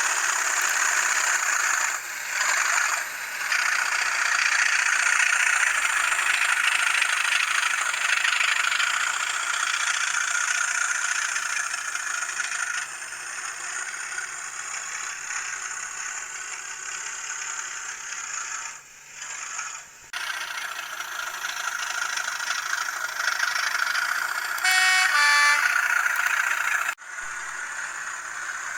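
Hornby TTS sound decoder playing a Class 37 diesel engine sound through a model locomotive's tiny speaker as the N gauge loco runs, thin and tinny with little bass. A horn sounds briefly near the end, and the engine sound dips out for a moment a few times.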